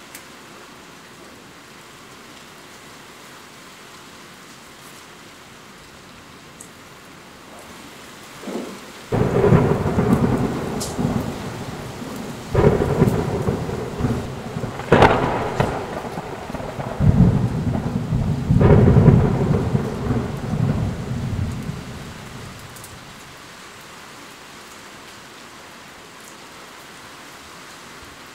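Steady rain with a long peal of thunder about a third of the way in: several loud cracks and low rumbles over some thirteen seconds, the sharpest crack near the middle, dying away to the rain alone.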